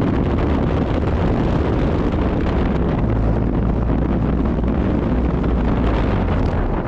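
Strong wind buffeting the microphone: a steady, loud low rumble with a rushing hiss over it.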